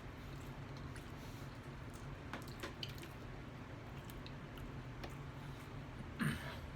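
Close-up chewing of a loaded burger, with wet mouth clicks and smacks scattered through. A louder, short noisy mouth sound comes near the end.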